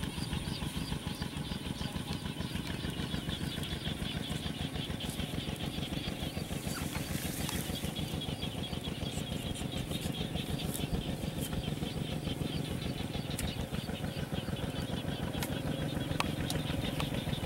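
A small engine running steadily, an even fast chugging that holds the same rate and level throughout.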